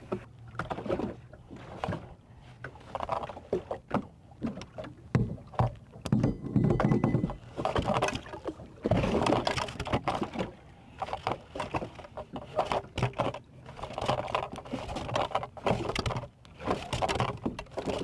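Irregular knocks and rustling noise on a small boat as a trotline with its sinker and foam float is handled and let down over the side to the bottom.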